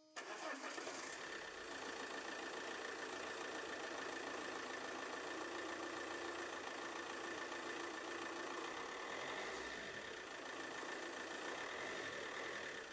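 Alfa Romeo 1.9 JTDm 16v four-cylinder common-rail turbodiesel idling steadily, with a thin steady whine over the engine noise.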